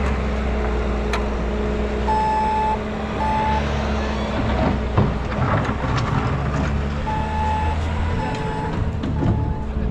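A heavy vehicle's engine running steadily, with an electronic beeper sounding in uneven spurts like a reversing alarm. A sharp knock comes about five seconds in.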